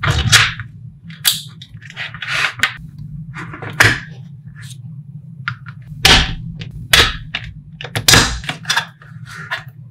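Small magnetic balls clicking and snapping together as they are pulled apart and rejoined by hand, in irregular clusters of sharp clicks with several loud snaps spread through. A steady low hum sits underneath.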